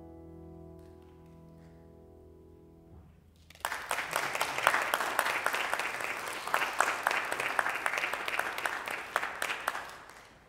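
A final held chord rings out and fades over about three seconds, then an audience breaks into applause, clapping for about six seconds before dying away near the end.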